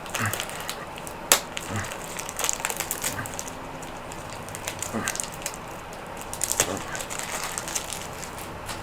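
Crinkling, rustling and scattered clicks of packaging and a stack of trading cards being handled and worked open, with one sharp snap a little over a second in.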